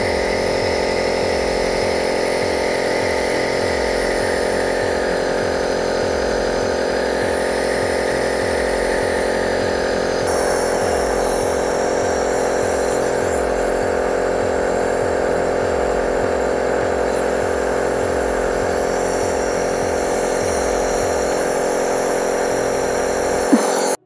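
Elvasense NEB39 air-compressor nebulizer running with a steady hum, cutting off abruptly near the end.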